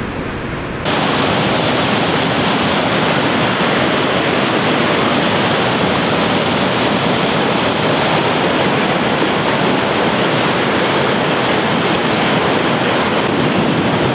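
Steady rush of whitewater river rapids, stepping louder and brighter about a second in.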